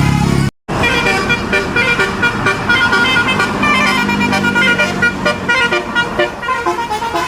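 Bus telolet horn, a Basuri multi-trumpet air horn, playing a quick tune of many short notes stepping up and down in pitch. The sound cuts out briefly about half a second in, then the tune runs on.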